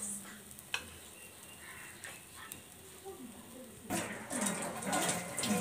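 A metal spatula clicking against a plate as omelette pieces are laid on it. About four seconds in comes a louder stretch of rustling, scraping handling noise.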